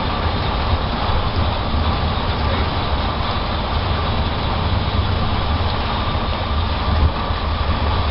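Steady road and engine noise of a car driving at speed, heard from inside the cabin: a constant low rumble with tyre hiss.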